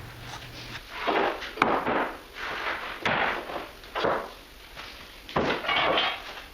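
Wooden boards being handled on a lumber stack: about five short scraping, sliding sounds of wood on wood, with one sharp knock early on.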